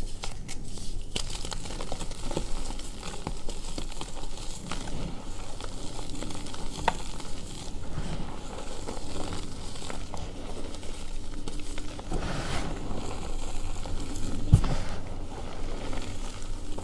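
Hands crushing and crumbling reformed gym chalk (magnesium carbonate) in a heap of loose powder: a continuous crunchy crackling as the chunks break and the powder shifts and sifts between the fingers, with one louder thud about three-quarters of the way in.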